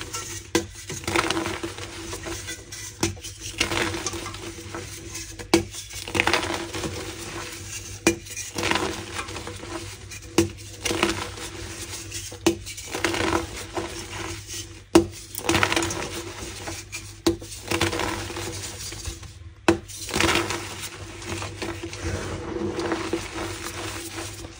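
Pink gym chalk blocks crunching and crumbling in short crackly bursts every second or two, with sharp snaps as pieces break. A faint steady hum runs underneath.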